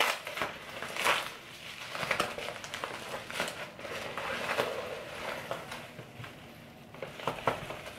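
Plastic bubble mailer rustling and crackling irregularly as hands open it and slide out a fabric drawstring bag.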